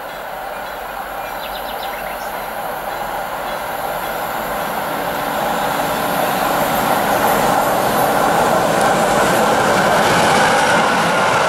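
Train wheels rolling on the rails, a steady rushing rail noise that grows louder throughout.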